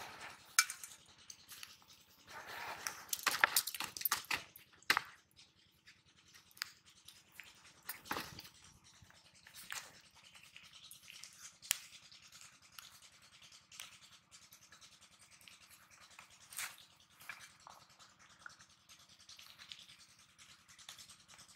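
Close-up handling sounds of fish and hooks on a plastic sheet: scratching and rustling with scattered sharp clicks, densest and loudest about two to five seconds in.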